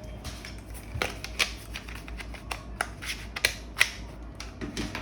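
Irregular light clicks and taps of small hard parts being handled, about a dozen over a few seconds, the sharpest about four seconds in, over a faint steady hum.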